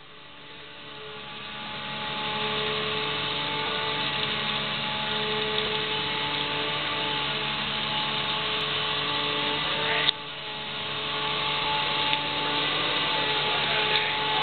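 Aircraft engines heard from inside the cabin: a steady mechanical drone with several whining tones, building in loudness over the first two seconds. A sharp click about ten seconds in, after which the drone dips and builds again.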